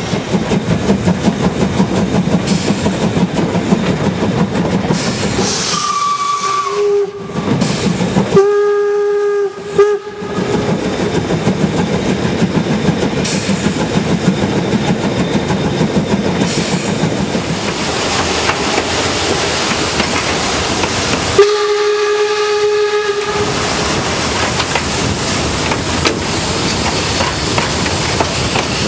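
Narrow-gauge steam locomotive whistle, blown three times: a short blast, then a longer one broken by a brief gap, and a third of about two seconds well past halfway. Under it runs the steady rattle and clatter of the moving train.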